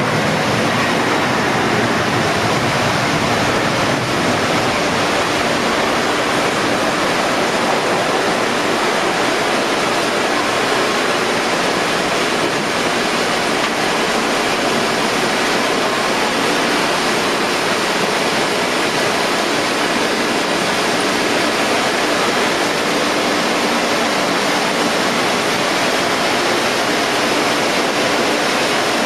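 Steady rushing roar of a jet airliner running on the ramp, with a few faint steady tones beneath the rush.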